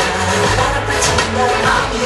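Pop song with a singing voice, played loud and steady.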